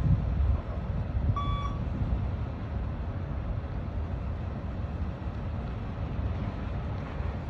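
A single short electronic beep from a beep-test track about one and a half seconds in, the signal to reach the line and turn. It sits over a steady low rumbling noise.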